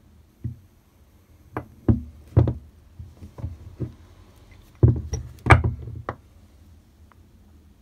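A small restored clamp-on metal vise being handled, turned over and set down on a bench top, giving a series of irregular knocks and clunks. The loudest come about five seconds in.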